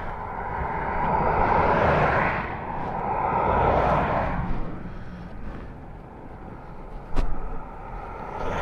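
Motorcycle pulling away and riding on, its engine and wind noise rising and falling twice. There is a single sharp knock about seven seconds in.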